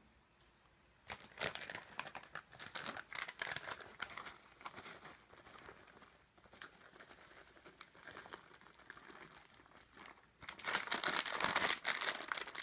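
Crinkling and rustling as shredded mozzarella cheese is handled and sprinkled over a casserole. It comes in scattered bursts, with a longer, denser stretch near the end.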